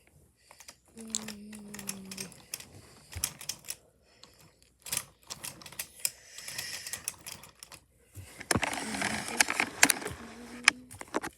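Wooden toy trains and track pieces clacking and rattling against each other in a string of sharp, irregular clicks, with a denser rattling stretch near the end. A short low hum, like a voice, comes about a second in.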